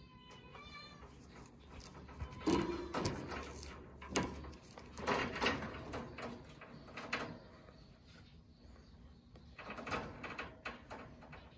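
Wire pet cage rattling and clattering with a run of knocks and scrapes as kittens pounce and paw at a feather wand toy through the bars, after a short kitten mew in the first second.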